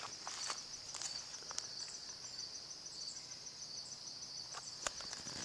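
Insects chirping in a steady high-pitched chorus with a fast, even pulse, with a few scattered faint clicks and one sharper click near the end.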